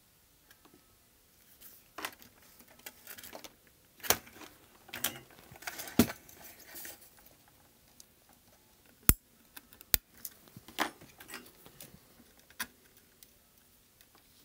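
Small tools and parts handled on a workbench while ribbon-cable wires are soldered to a connector: scattered clicks, taps and light rattles, with a few sharper clicks about six, nine and ten seconds in.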